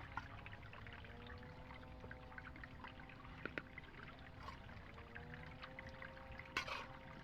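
Water trickling and dripping, with many small scattered drops and a brief louder splash near the end, over a faint wavering hum.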